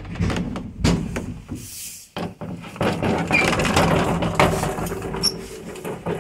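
Old elevator doors being worked by hand: several sharp wooden knocks and clacks in the first second, then a long rattling, scraping clatter as the car door and the landing door are pushed open.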